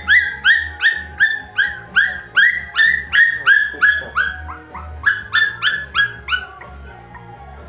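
A four-week-old puppy yelping over and over, about three high cries a second, until they stop about six and a half seconds in. Background music with a steady bass beat plays underneath.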